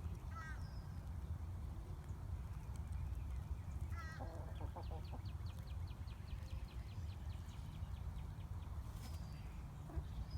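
Chickens making short calls and soft clucks over a steady low rumble, with a quick run of high ticks for a few seconds in the middle.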